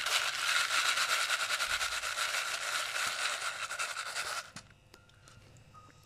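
Dry, unpopped popcorn kernels rattling in a plastic bowl, a continuous rush of many small clicks that stops abruptly after about four and a half seconds.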